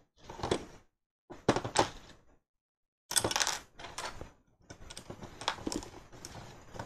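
Plastic building bricks clicking and rattling as they are handled and pressed onto a small brick-built boat, in several short bursts with brief pauses between them.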